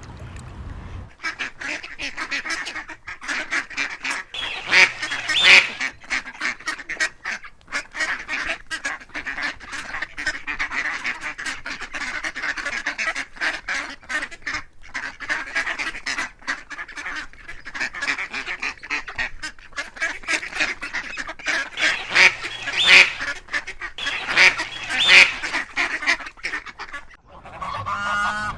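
A flock of ducks quacking, many calls overlapping in a continuous chatter, with a few louder calls standing out.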